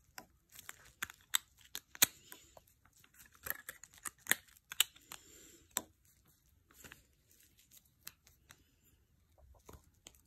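Clear plastic crinkling and crackling as it is handled, a run of sharp irregular clicks that are thickest in the first six seconds and then thin out and grow fainter.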